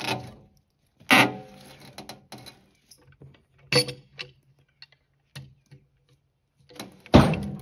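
About five separate metallic clanks and knocks a second or two apart, some with a short ringing tail, from handling the log and setting up the Woodmizer LT15 band sawmill for the next cut. The mill is not running.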